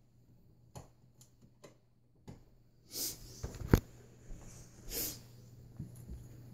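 Dogue de Bordeaux breathing out hard twice, about three and five seconds in, with a sharp knock between the two and a few faint clicks before them.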